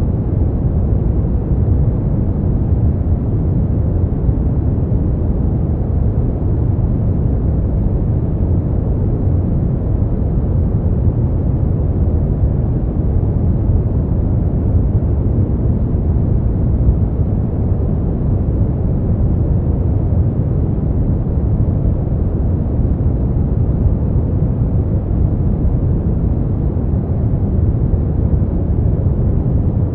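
Steady brown noise: a smooth, deep, even rumble of noise, strongest in the bass and softening toward the treble, with no changes.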